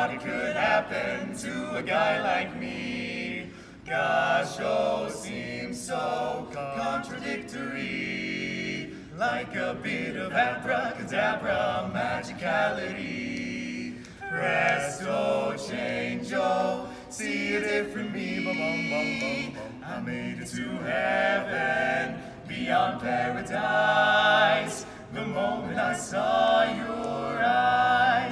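Barbershop quartet of four young male voices singing a cappella in four-part close harmony, in sustained chords with short breaks between phrases.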